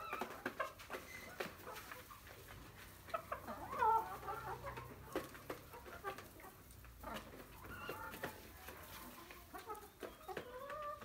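Vietnamese Ác hens (white, black-boned silkie-type chickens) clucking with short calls, the loudest about four seconds in and another near the end, among light clicks of eggs being set into a plastic basket.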